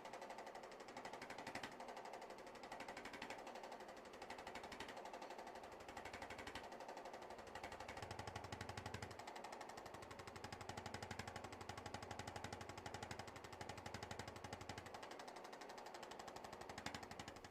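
Handheld percussion massager running on the back, a faint, fast, even mechanical pulsing that goes on without a break.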